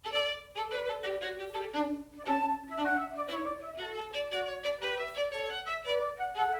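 Background music: an instrumental melody of separate, stepping notes.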